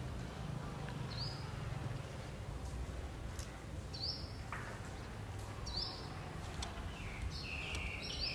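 Short, high chirping calls that rise quickly in pitch, one every second or two, over a low outdoor rumble.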